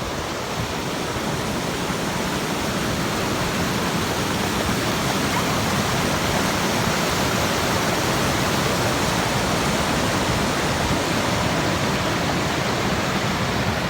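Waterfall pouring close by: a loud, steady rush of falling water, swelling a little over the first few seconds.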